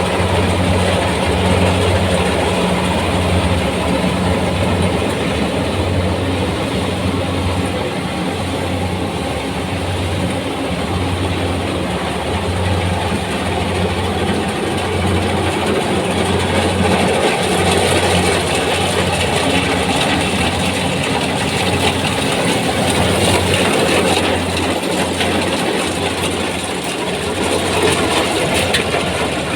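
Kubota rice combine harvester running steadily while harvesting: a low, even engine hum under the dense clatter and rush of the cutting and threshing machinery.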